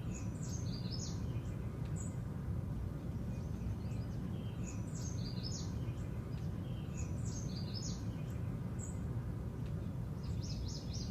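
Birds chirping in short high phrases every two to three seconds over a steady low rumble of outdoor background noise.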